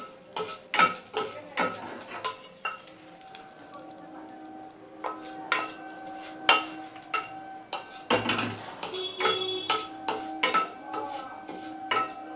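A metal spatula tapping and scraping in a kadai while whole cumin seeds, a dried red chilli and a bay leaf fry in a little hot oil, with a light sizzle.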